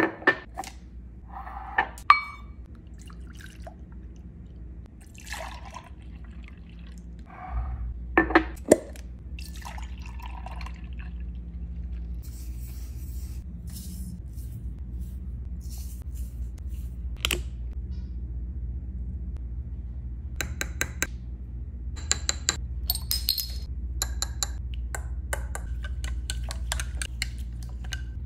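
Glass jars being handled on a stone counter: clinks and knocks of glass, milk poured into the jars, chia seeds pattering in from a measuring spoon, then a small spoon stirring with quick clinks against the glass in the second half. A steady low hum runs underneath.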